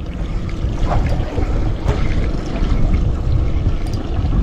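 Small aluminium boat under way at trolling speed: a steady low rumble of wind and water noise, with its outboard running.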